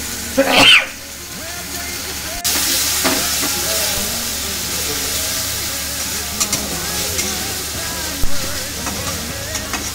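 Mushrooms sautéing in hot oil in a pan: a brief loud noise near the start, then a sudden louder sizzle from about two and a half seconds in that carries on steadily, with a few sharp clicks of stirring.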